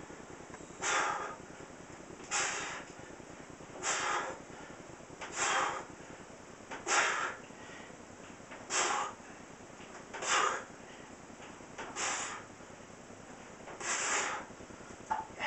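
A man's forceful breaths, about nine of them, one roughly every second and a half, in time with reps as he presses a pair of heavy dumbbells overhead.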